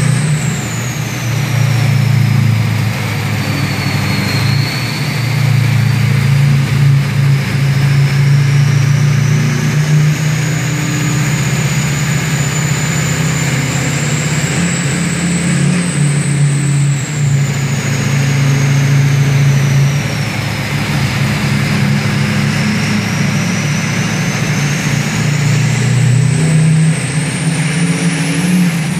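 Duramax diesel pickup engine running under load, with the high whistle of its billet 72 mm VGT turbocharger over it. The whistle falls early on, climbs slowly, falls again, then climbs to its highest pitch near the end as boost rises and falls.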